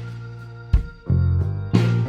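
Music: sustained pitched notes, with a new note struck about once a second.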